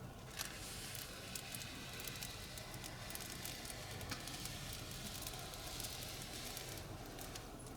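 Faint, continuous hiss with scattered small crackles from a Nissan NV350 Caravan's air-conditioning system. This is the steady hissing noise the owner hears with the AC on, which he takes for a refrigerant gas leak.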